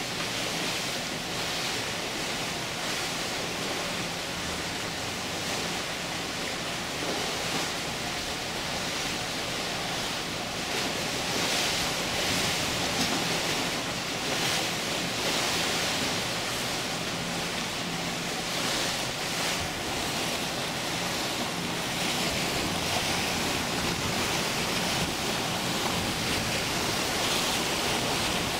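Steady rush of churning water from a cruise ship's thrusters pushing the ship in against the pier while docking, with wind buffeting the microphone.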